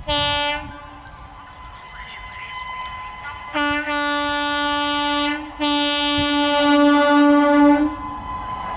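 WAG-9HC electric locomotive's horn sounding as the train approaches: one short blast, then two long blasts.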